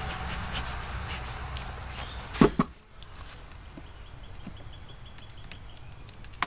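Two sharp knocks about two and a half seconds in, with lighter taps and clicks around them: a hive tool working at the outer cover of a beehive that the bees have sealed with propolis. A low steady hum stops just after the knocks.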